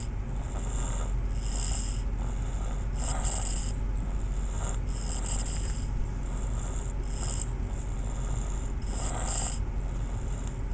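A sleeper snoring, with a rasping snore about every two seconds over a steady low hum.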